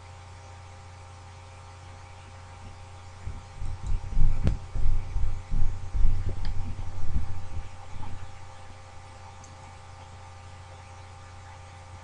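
Steady low electrical hum with a few faint steady tones above it. Near the middle it is broken by a few seconds of irregular low thumps and bumps, with one sharper click among them.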